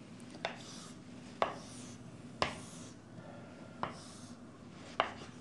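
Chalk drawing straight lines on a chalkboard: a sharp tap each time the chalk strikes the board, five in all about a second apart, with faint scraping strokes between.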